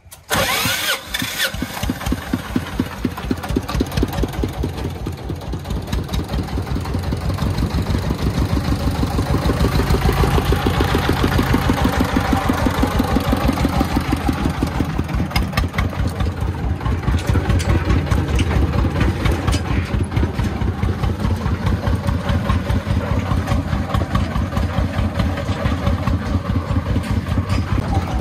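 A công nông farm truck's diesel engine runs with a steady, evenly pulsed chugging beat. It comes in suddenly at the start and gets louder about ten seconds in.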